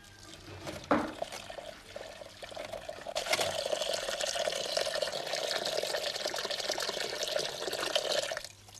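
A knock about a second in, then water pouring steadily for about five seconds before it stops near the end.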